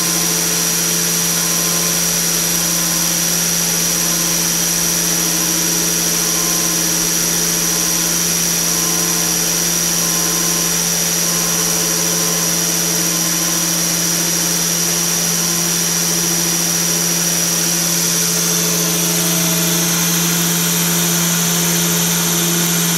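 Internal grinding machine running steadily as its small pink wheel grinds the bore of a workpiece turning in the chuck. A constant high-pitched spindle whine over a steady low motor hum, with the hiss of coolant splashing on the work.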